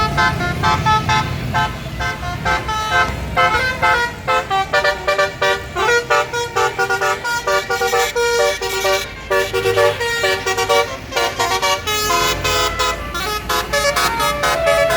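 Bus 'telolet' musical horn of the basuri type, playing a quick tune of short, rapid tooting notes that jump between pitches, loud throughout.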